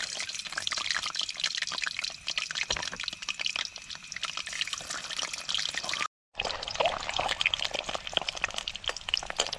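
Boiled eggs frying in hot oil in a kadhai: a steady sizzle with dense crackling and spitting pops. The sound drops out for a moment about six seconds in.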